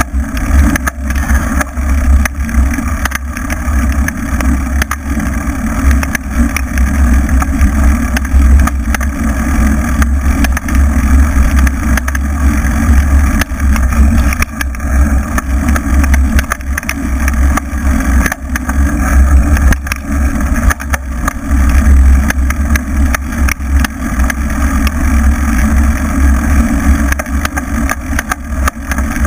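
Steady loud wind rush and low rumble on a camera mounted on an off-road ride over a bumpy grass track, with frequent small knocks and rattles from the ride jolting the mount.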